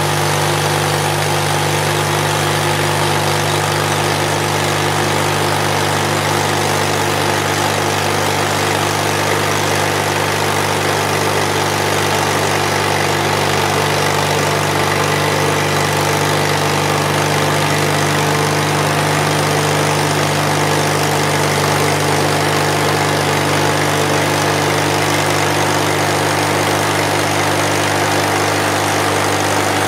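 Mighty Mite bandsaw mill running steadily, its engine driving the band blade through an old, partly rotten spruce cant to saw off a 2-inch slice.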